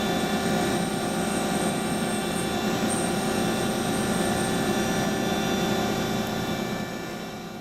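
Mori Seiki NMV1500 machining centre milling 7075 aluminium: a steady run of spindle and cutting noise with a whine of several held tones, fading out near the end.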